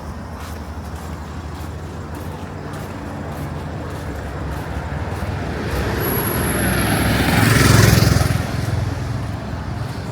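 A motor vehicle drives past close by over a steady traffic rumble, building up, loudest about eight seconds in, then fading. A brief thin high whine comes just before the peak.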